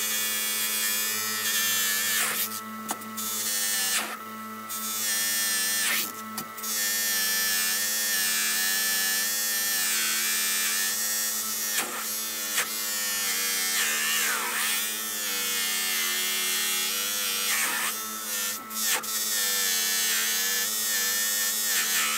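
Bench grinder running, with a steel clamp screw shaft held against its spinning wheel: a steady motor hum under a high scraping whirr. The scraping drops out briefly a few times, around 2.5, 4, 6 and 18.5 seconds in, as the shaft is lifted off and repositioned.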